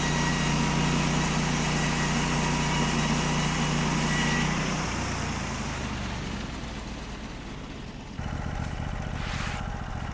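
Engine of a log-milling rig running steadily. About five seconds in its pitch and level ease off, and about eight seconds in it comes back up louder.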